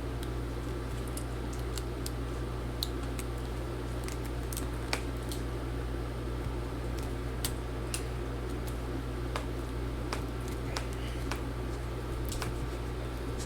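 A steady low hum with scattered faint clicks and taps from hands handling laptop parts.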